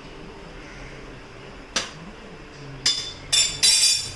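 Cookware being handled at an aluminium idli steamer: a sharp clink just under two seconds in, then three short, loud scraping, rustling noises near the end as the steamed grated tapioca is lifted out in its cloth.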